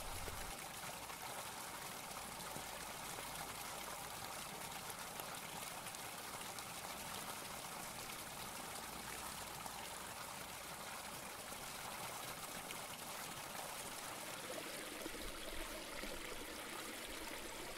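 Faint, steady trickle of running water.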